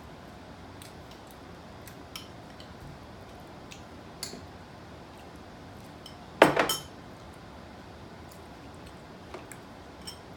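Eating at a table: scattered light clicks and clinks of dishes and cutlery, and one loud, sharp noise about six and a half seconds in.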